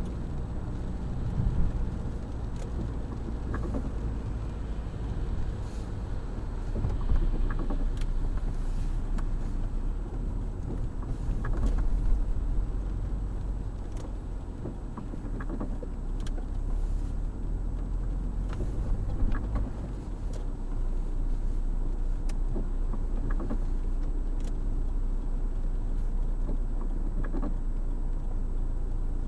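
Car driving on a wet road, heard from inside the cabin: a steady low engine and road rumble with tyre noise, and scattered light clicks.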